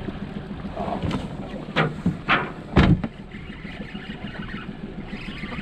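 Boat motor running steadily at trolling speed, with four sharp knocks and thumps between about one and three seconds in, the last the loudest.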